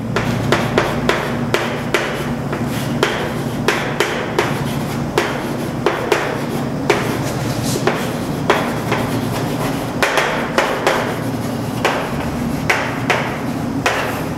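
Chalk writing on a chalkboard: a quick, irregular run of sharp taps and short scratchy strokes as words are written out, over a steady low hum.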